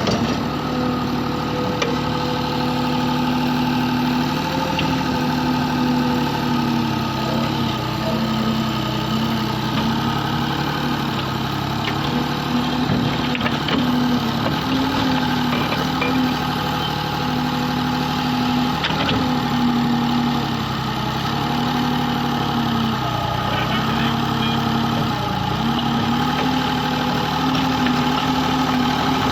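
Excavator's diesel engine running steadily, its pitch dipping slightly and recovering every few seconds.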